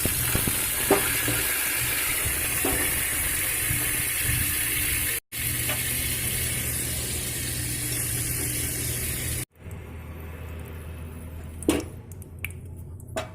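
Hot coconut oil sizzling as watery betel-leaf juice is added to it. The hiss cuts off abruptly twice and is much fainter over the last few seconds, with a couple of light knocks.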